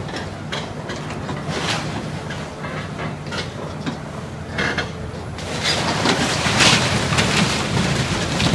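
Excavator's diesel engine running steadily while its bucket tears into a wooden roof, with irregular cracking and crunching of splintering timber and debris. The breaking grows louder about two-thirds of the way through.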